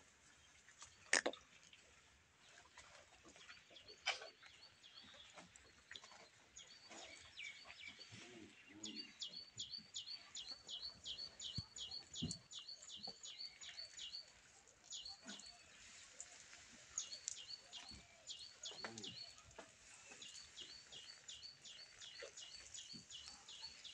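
Faint small-bird chirping: long runs of short high chirps at about three a second, with a few pauses. A sharp knock about a second in.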